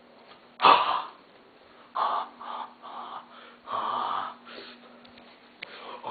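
A young man's wordless comic vocal noises: a sharp loud cry just over half a second in, then a run of short, choppy cries and grunts from about two to four seconds.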